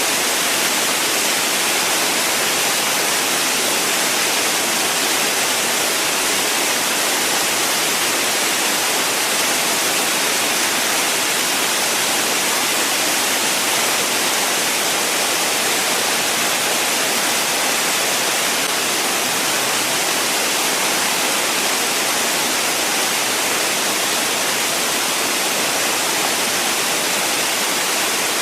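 Waterfall: water falling and splashing in a steady, even rush, strongest in the higher range.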